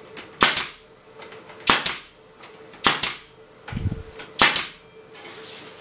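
Pneumatic air stapler firing one-inch staples into the wooden bottom bars of beehive frames held in a jig: about four sharp shots, roughly one every second and a quarter. There is a dull knock just before the last shot.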